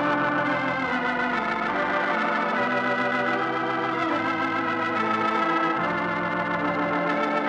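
Organ music playing slow, sustained chords that change every second or two.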